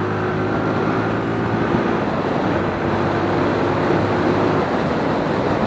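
TVS Apache RTR 160 4V's 159.7 cc single-cylinder oil-cooled engine running steadily while the motorcycle is ridden at speed, with wind and road rush over it, heard from on the bike.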